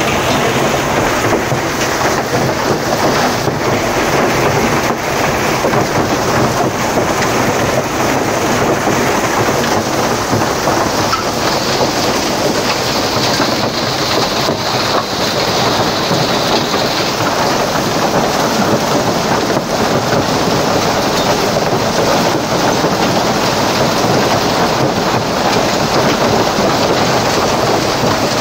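Heavy rain mixed with hail pelting down on pavement and on parked cars and motorbikes, a loud steady hiss.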